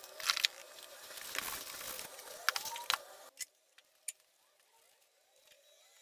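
A stiff glue brush scrubbing contact cement onto fabric: scratchy strokes with a few sharp knocks. Just past halfway the sound drops abruptly to a much quieter background with faint scattered ticks.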